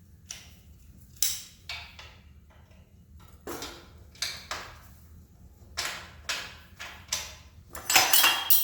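Irregular metal clicks and knocks from hand tools and parts while a motorcycle exhaust is taken off, ending in a louder ringing metallic clank near the end.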